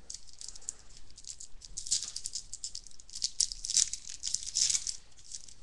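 Baseball card pack wrapper being crinkled and torn open by hand, a run of dense crackles that is loudest about three to five seconds in.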